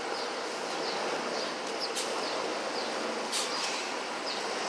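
Steady outdoor city street noise, the hiss of traffic, with a few faint short high chirps and two brief clicks, about two and three and a half seconds in.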